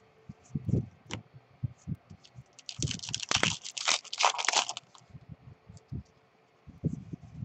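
A trading card pack's wrapper being torn open, a dense crinkling and tearing from about three seconds in that lasts about two seconds. Before and after it come soft taps and slides of cards being handled on a table.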